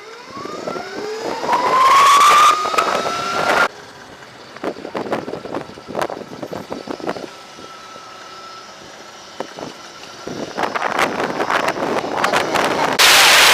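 Throne SRPNT electric motorbike's motor whining and rising in pitch as it accelerates for about three seconds, then stopping abruptly. Near the end, wind buffets the microphone and builds until it is very loud.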